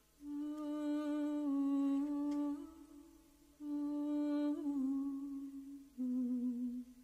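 A woman humming a slow wordless melody in three long held phrases, with small pitch slides between notes.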